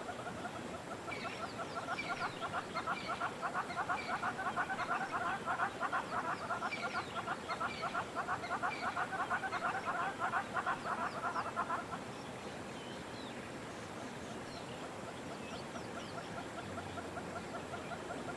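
Animal calls: a fast, evenly pulsing chatter that stops about twelve seconds in, with scattered short bird chirps over it.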